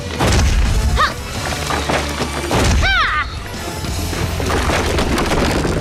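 Cartoon fight sound effects over action music: two heavy booming impacts, the first just after the start and the second about two and a half seconds in, with short swooping tones after each, as blows smash into a stone wall.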